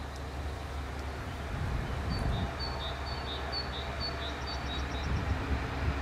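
DB Class 628 diesel railcar running at a distance, a low steady rumble that grows a little louder. In the middle a small bird sings a quick run of repeated high two-note phrases, about two a second.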